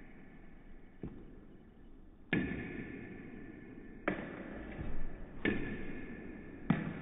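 Table tennis ball being hit hard back and forth on paddles and table during a smash rally: five sharp, echoing cracks about one and a third seconds apart.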